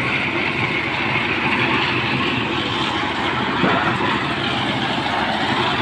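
A machine engine running steadily without a break, a dense mechanical drone.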